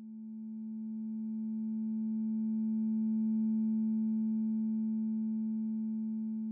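Sonic Pi synthesizer drone: a single sustained tone of a few steady stacked pitches that swells in from silence, peaks about halfway and slowly fades. It sonifies the distribution of chloride values in red wines, with the histogram mapped onto the tone's spectral profile.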